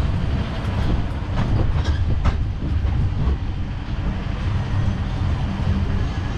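A tourist road train rolling along, heard from on board: a steady low rumble of motor and wheels, with several rattling clicks and knocks from the carriages in the first couple of seconds.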